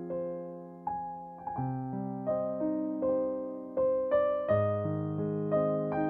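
Slow, soft piano background music: single notes and chords struck every half second or so, each left to ring and fade.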